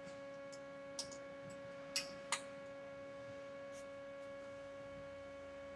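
Steady electrical hum with several overtones, and a few short faint clicks of parts being handled in a truck's engine bay, the clearest three between one and two and a half seconds in.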